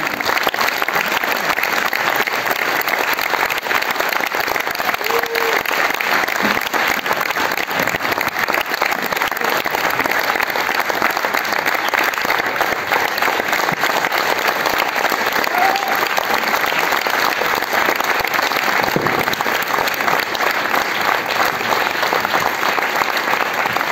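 Audience applauding steadily: a long, unbroken round of clapping from a full hall.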